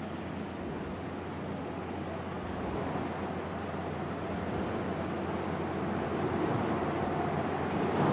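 Wind on the microphone and waves on the sea, a steady rushing noise that grows a little louder toward the end.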